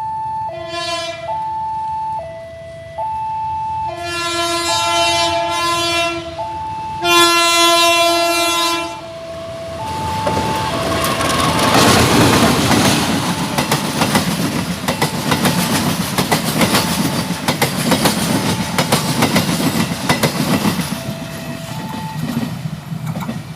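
A two-tone warning signal alternates steadily while an Indonesian diesel locomotive sounds its horn twice, the second blast longer and louder. About ten seconds in, the train passes, its wheels clattering rhythmically over the rail joints.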